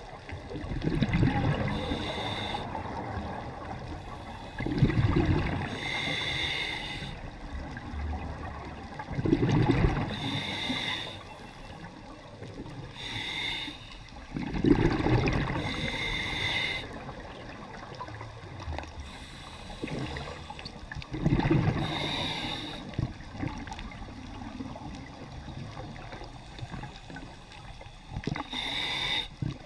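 Scuba breathing through a demand regulator underwater: hissing inhales with a faint whistle-like tone, alternating with rumbling rushes of exhaled bubbles, five breaths in all.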